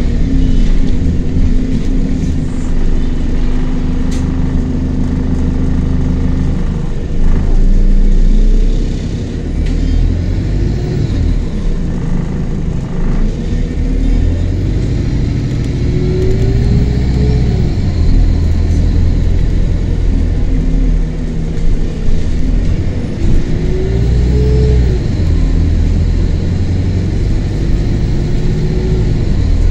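A single-deck bus's engine heard from inside the passenger cabin, steady at first, then rising in pitch several times as the bus accelerates and dropping back in between.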